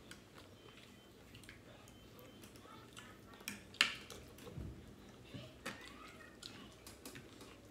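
Soft eating sounds at a table: fried chicken pulled apart by hand, and scattered clicks of plastic forks and fingers on plastic plates, with one sharper click a little under four seconds in.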